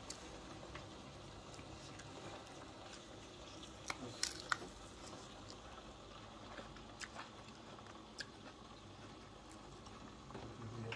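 Quiet room tone with a few faint, short clicks and taps, three of them close together about four seconds in.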